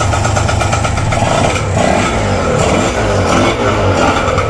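Yamaha TZM two-stroke motorcycle engine running steadily just after start-up, on a freshly rebuilt carburetor.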